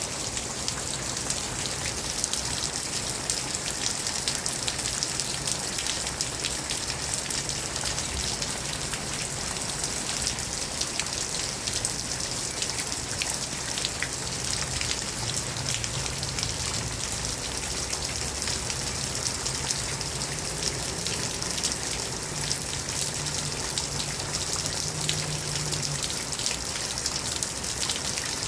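Steady rain falling, a dense even hiss of drops with fine patters, with a faint low hum underneath.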